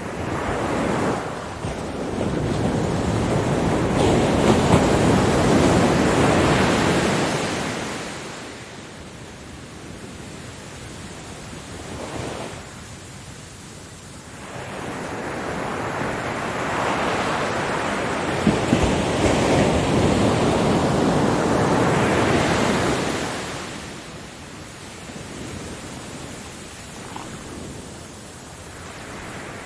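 Ocean waves breaking on a beach. Two waves swell up and wash away about fifteen seconds apart, with a quieter hiss of receding surf between them.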